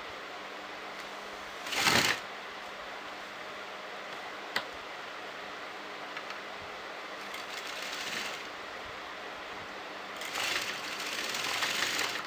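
Sewing machine stitching in short runs: a brief loud burst about two seconds in, a softer run around eight seconds, and a longer run over the last two seconds, with a single click in between.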